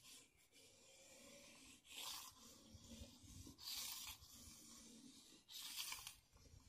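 Razor blade scraping dried paint off window glass: faint scraping strokes, about three, roughly two seconds apart.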